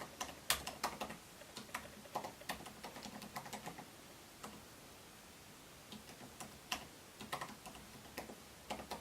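Typing on a 2016 MacBook Pro's shallow-travel butterfly keyboard: irregular light key clicks, pausing for about a second and a half around the middle before the typing picks up again.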